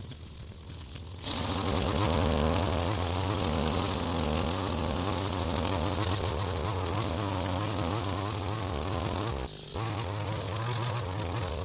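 String trimmer (strimmer) cutting long grass: a steady buzzing whine that jumps to full speed about a second in, dips for a moment about two seconds before the end, then picks up again.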